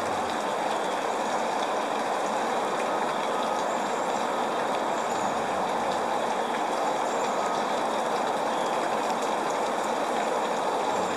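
Steady rain falling: an even, unbroken hiss with faint scattered drop ticks.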